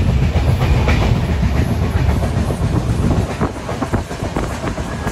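Passenger train running at speed, heard from inside the coach: a loud, steady low rumble of wheels and carriage, with a few sharper clicks near the end.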